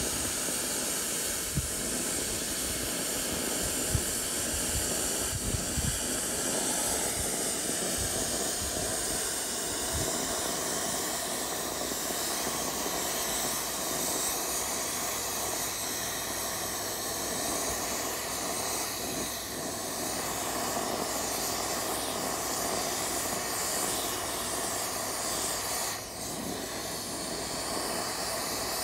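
Hypertherm Powermax85 plasma cutter with a replacement hand torch cutting through 1-inch-thick steel: the steady hiss of the plasma arc and its air stream, with a few dull bumps in the first several seconds and a brief dip near the end.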